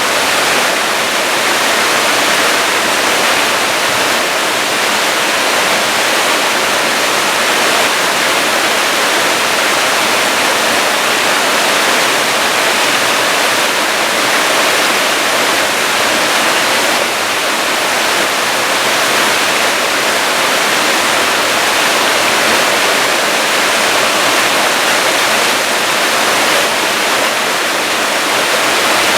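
Waterfall pouring: a steady, loud rush of water.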